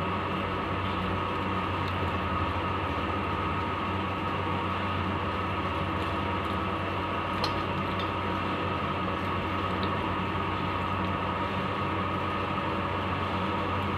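A steady mechanical hum, a low drone with a band of steady tones above it, and a couple of faint clicks.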